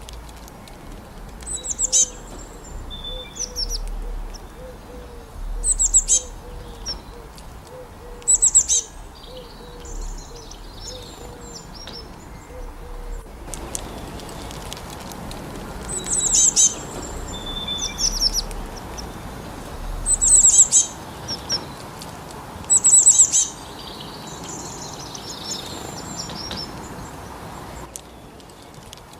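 Songbirds singing: a bright, high, quickly trilled phrase about a second long, repeated every few seconds, with softer chirps between, over a steady hiss. For the first half, a lower short note repeats about twice a second beneath the song.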